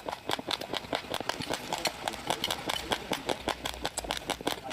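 Raw rice grains being crunched between the teeth while chewing: a dense, irregular run of sharp crunching clicks, several a second.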